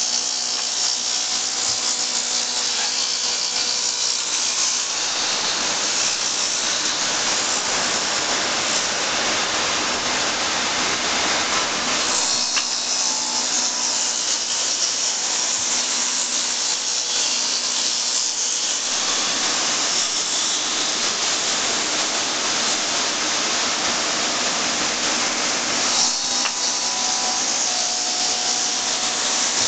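1998 Intorex RM-115 automatic copy lathe cutting spinning wooden blanks. The cutters make a steady hiss over a constant machine hum, and the noise grows harsher about twelve seconds in and again near the end.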